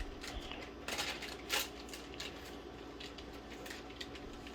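Faint handling noises: a few soft clicks and rustles over a low room hum, the loudest about a second and a half in.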